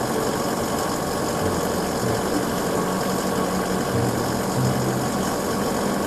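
Engine of an Isuzu aerial work platform truck running steadily while its boom raises the work platform, with a steady hiss and a low hum that swells now and then.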